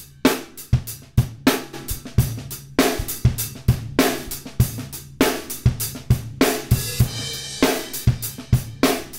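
A recorded drum kit playing a steady groove of kick, snare, hi-hat and cymbals, heard first raw and then through a Waves SSL G-Master bus compressor for comparison.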